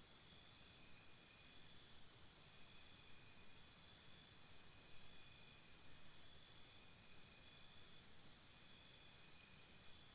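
Faint, high-pitched chirping of crickets, an even pulse of about four chirps a second, with fainter insect chirps higher up.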